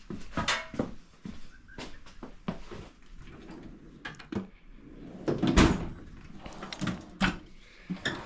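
Tools knocking and clattering while someone rummages through a toolbox for a screwdriver: a string of separate clicks and knocks, with one louder knock about five and a half seconds in.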